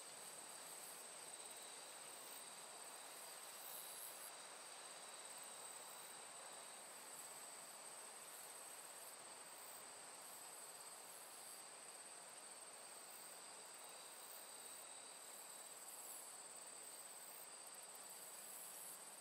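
Faint, steady chorus of field insects trilling high over a low hiss, with a second, lower trill that fades in and out.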